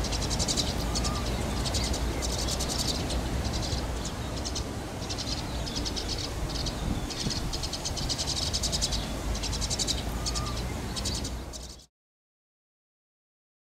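Animal calls: rapid chirping trills repeating over a steady low rumble, cutting off suddenly about twelve seconds in.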